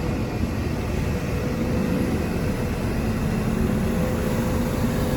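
Heavy diesel construction machinery running steadily, a constant engine drone with a faint held whine over it.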